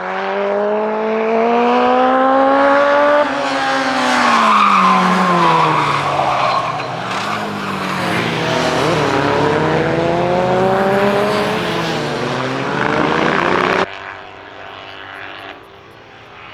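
Classic racing sidecar outfits running at full throttle. The engine note climbs, drops at a gear change about three seconds in, falls away as they pass, then climbs again. Near the end the loud sound cuts off abruptly, leaving a faint engine in the distance.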